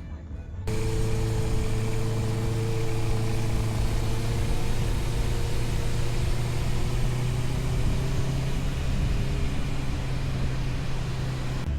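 Honda CBR650R inline-four motorcycle engine running steadily while riding, with a broad rush of wind noise. It cuts in abruptly about a second in.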